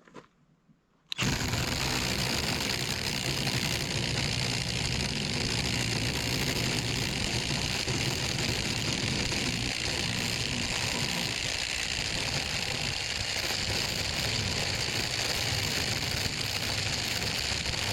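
Cordless impact driver starting suddenly about a second in and running flat out under a stress test, its motor and impact mechanism making a steady, dense hammering rattle.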